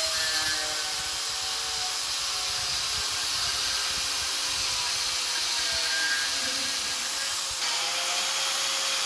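Angle grinder running at speed with a 3D-printed PLA cutoff disc pressed into a PLA printed part: a steady motor whine over a rubbing, grinding hiss as the plastic disc and workpiece melt against each other.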